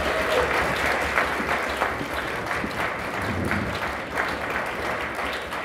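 Audience applauding: many people clapping steadily, easing off slightly toward the end.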